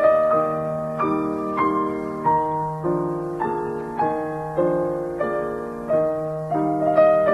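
Background piano music: a slow melody of single struck notes over held chords, a new note roughly every half second.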